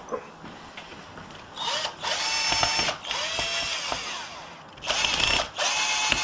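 Cordless drill-driver running in four or five short bursts as it drives screws, the motor whining up to speed at the start of each run and winding down at the end.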